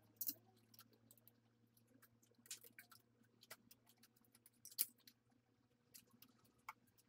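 Faint, scattered light clicks and taps of thin wooden lattice slats being laid across one another and fitted by hand, the sharpest click about two-thirds of the way in.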